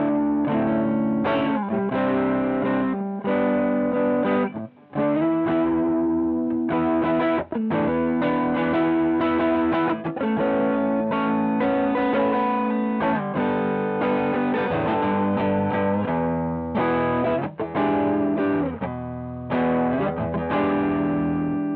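Overdriven electric guitar through a Joyo JF-22 Oxford Sound Orange-style amp-sim pedal, recorded direct with a cabinet simulation. It plays chord riffs broken by short sudden stops, and near the end a last chord is left ringing and fading.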